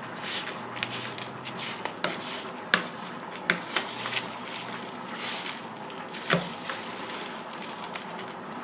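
A spoon mixing khoya with sugar and dried fruit in a bowl: soft scraping and handling, broken by a few sharp clinks scattered through.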